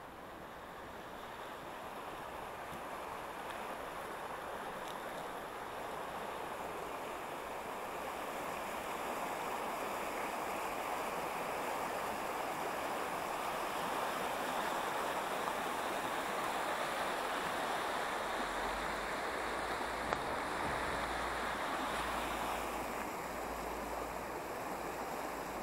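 Rushing water of the Vltava river, a steady noise that grows louder over the first half and eases a little near the end. Wind rumble on the microphone joins in the last third.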